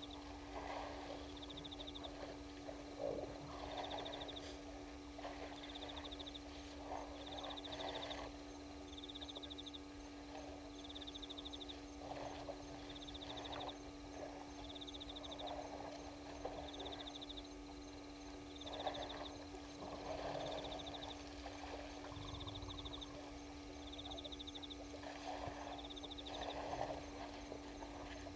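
African elephants drinking at a waterhole: irregular splashing and sloshing of water from their trunks, recurring every second or two. Over it a short high trilled chirp from a night-calling frog or insect repeats about every second and a half, with a steady low hum throughout.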